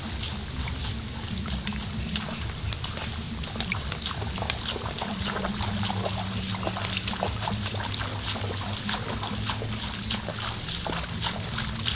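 Outdoor forest ambience: a steady low rumble with many small scattered crackles and rustles, and a thin, steady high-pitched tone over the top.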